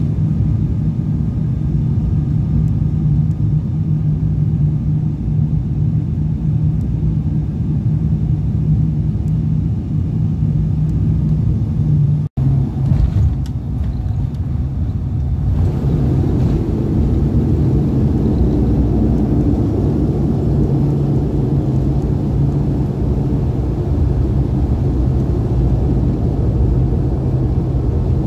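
Cabin sound of an ATR 42-500's twin turboprops: a steady low propeller drone on short final. After a brief dropout about twelve seconds in, the noise turns louder and rougher about halfway through as the aircraft rolls out on the runway after touchdown.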